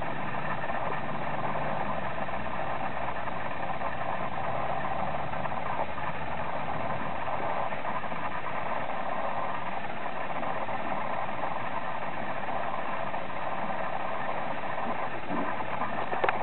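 A steady mechanical drone, unchanging throughout.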